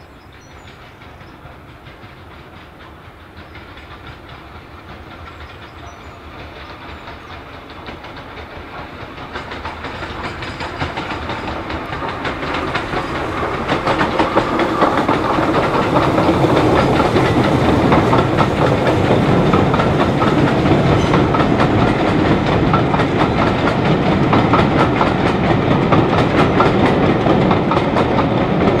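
Steam-hauled passenger train approaching and passing close. The rumble and clatter of the locomotive and coaches on the rails grows louder over the first half, then holds steady and loud as the train goes by.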